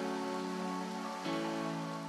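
Intro music: soft, held chords, moving to a new chord a little over a second in.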